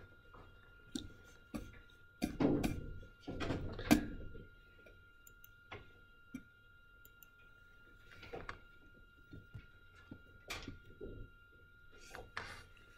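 Scattered clicks and soft knocks from handling a tablet pen and computer, with two louder thumps a couple of seconds in, over a faint steady high-pitched whine.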